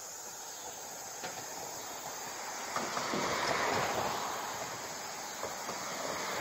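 Outdoor ambience: a steady high insect drone, with a broad rushing noise that swells about three seconds in and fades away over the next second or two.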